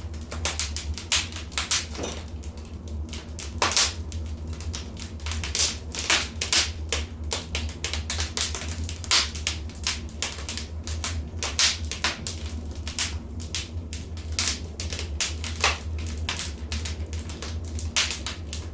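Wood fire in a fireplace crackling: a dense, irregular run of sharp snaps and pops over a steady low rumble.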